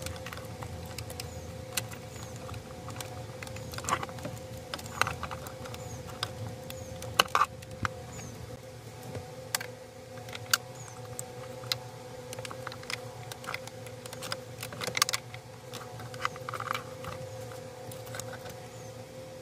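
Irregular small plastic clicks and taps from hands unplugging and fitting a dashboard USB hub module and its connectors, over a steady faint hum.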